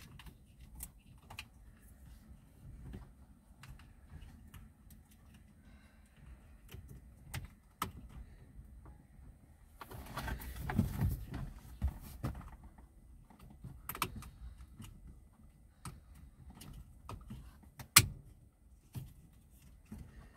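Small plastic clicks and rattles from hands working the wiring connector and clips under a steering-column headlight stalk switch. There is a scuffling rustle about ten seconds in and a single sharp, loud click near eighteen seconds.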